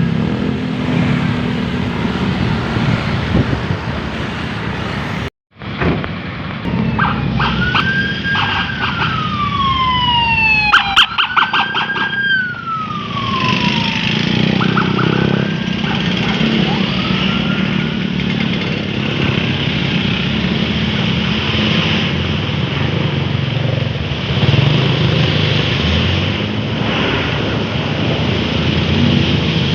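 Bus telolet horn of the Basuri type playing a melody of pitched notes that rise and slide down, siren-like, for about six seconds, starting a few seconds in, with a few fainter slides after. Under it runs the steady rumble of bus engines and traffic.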